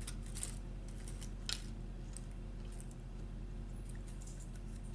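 Faint mouth clicks and smacks of someone chewing food: a handful of short sharp ticks, the clearest about a second and a half in, over a steady low hum.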